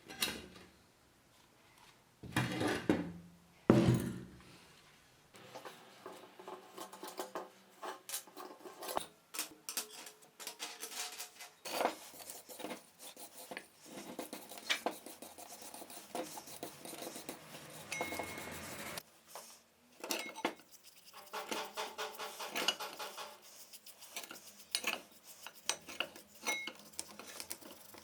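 Small metal parts clinking, knocking and scraping as they are handled, in scattered irregular clicks. Two louder knocks come a few seconds in.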